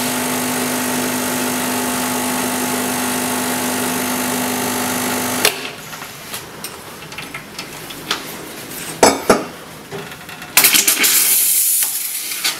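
LELIT Diana PL60R1 espresso machine's vibration pump humming steadily while the espresso runs, cutting off abruptly about five and a half seconds in. A few clicks and two sharp knocks follow, then near the end a short blast of steam hiss from the steam wand.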